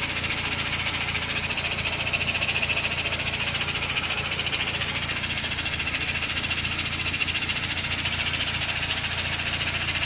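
Engine running steadily with a fast, even rattling tick over a low hum: the unexplained noise the owner is trying to track down.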